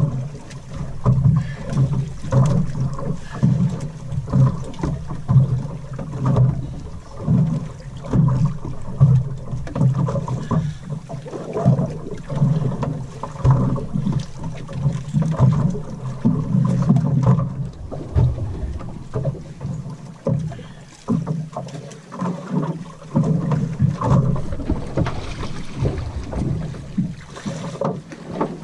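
Wind buffeting the microphone and water slapping against a small boat's hull, in uneven bursts about once a second.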